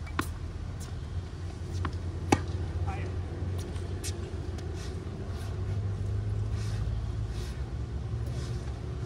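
Steady low rumble of city traffic, with a tennis racket striking the ball sharply about two seconds in and several fainter knocks of ball and play on the hard court.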